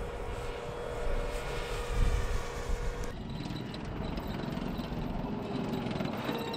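A steady engine drone with a constant hum, then, after an abrupt change about three seconds in, an M1 Abrams tank's gas-turbine engine running as the tank drives: a low rumble with a thin high whine.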